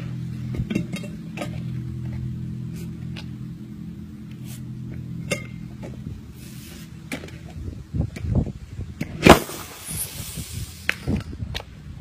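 Knocks and clicks of tyres and a spray can being handled, then a sudden loud bang about nine seconds in, followed by smaller knocks. The bang is flammable spray igniting inside a tyre, which blows the tyre's bead out onto the wheel rim.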